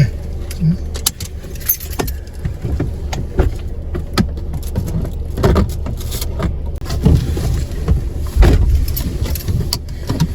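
Low rumble of a car moving slowly over rough ground, heard inside the cabin, with frequent small clicks, knocks and rattles.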